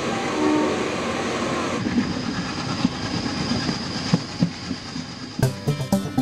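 Train running along the track with a steady rumble, its wheels knocking irregularly over the rail joints. Music starts near the end.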